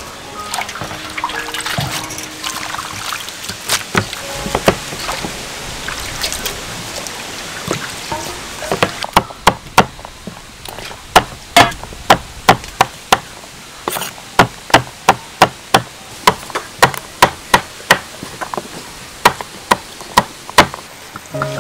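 Water trickling and splashing as leafy greens are handled wet, then, from about nine seconds in, a knife chopping pumpkin on a thick round chopping block: sharp knocks about three a second.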